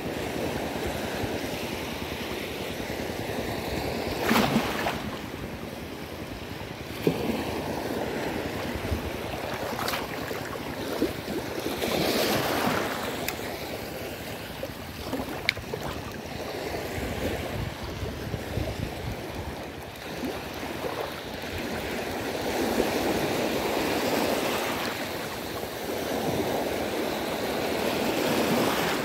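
Small sea waves washing and breaking in shallow water, a rushing sound that swells and fades, with wind on the microphone and a few brief knocks.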